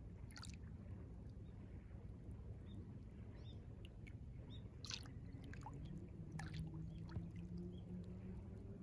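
Small ripples of a calm sea lapping at the shore: a soft steady wash with scattered little splashes and plops close by. A faint low hum comes in about two-thirds of the way through.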